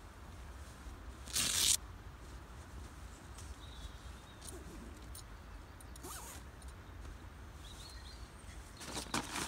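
Rustling of bedding and canvas as a person shifts about and settles down inside a canvas tent, with one brief louder rustle about a second and a half in and a softer one about six seconds in. A low steady rumble runs underneath.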